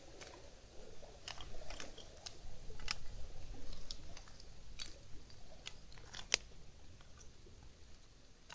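Dry split wood crackling and clicking in irregular sharp snaps as sticks are laid onto a smouldering kindling fire, with one louder snap near the end.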